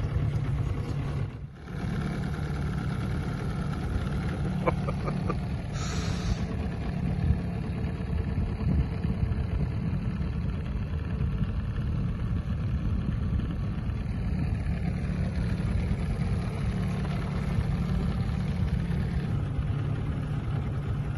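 Boat motor running steadily, a low even drone, with a brief dip about a second and a half in.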